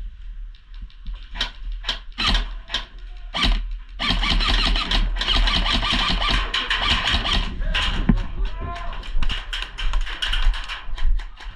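Airsoft guns firing: a few separate shots in the first seconds, then from about four seconds in a long, rapid full-auto rattle that keeps going almost to the end.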